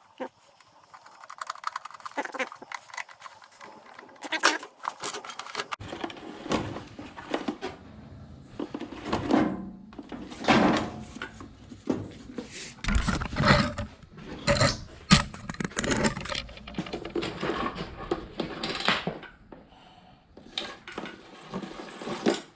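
Hands working a self-retracting power cord reel, with irregular clicks, knocks and rattles. Quiet at first, busier from about a quarter of the way in, with a few heavier thuds. This is the reel's mechanism being tried out after a rewiring repair.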